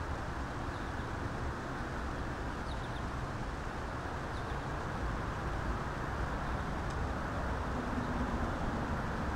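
Steady outdoor background noise, a low rumble and hiss like distant road traffic, with a few faint, short bird chirps.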